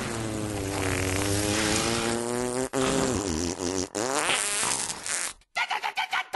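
A long cartoon fart, a buzzing tone whose pitch wavers and bends for about five seconds. It breaks off, then comes back as several short sputtering farts near the end.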